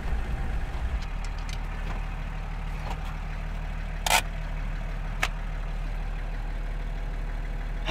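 Toyota HJ47 Troopy's diesel engine idling steadily, heard from inside the cab, with two sharp clicks about a second apart midway.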